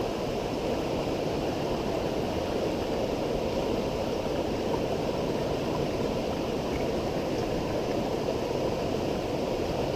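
A creek running high, a steady rush of flowing water.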